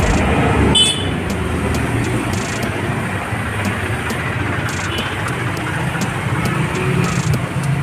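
Steady low rumble of passing road traffic and idling engines, with a brief high-pitched sound about a second in.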